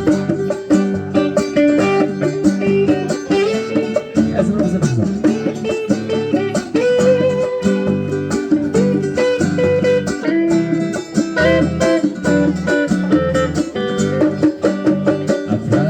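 Instrumental music: a plucked guitar melody over a steady drum-kit beat, with sharp regular hits all the way through.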